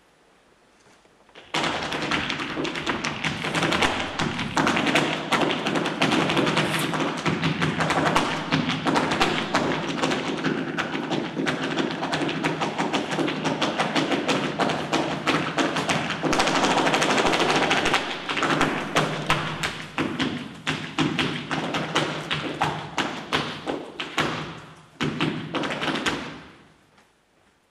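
Flamenco dancer's zapateado: rapid heel and toe strikes of shoes on the stage floor in fast, dense flurries. It starts sharply about a second and a half in, breaks off briefly near the end, then gives a final burst and stops.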